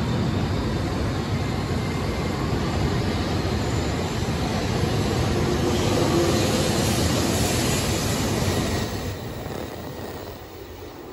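Shinkansen bullet train running past along the platform, a steady rushing rail and running noise that builds to its loudest about six to eight seconds in, then fades from about nine seconds.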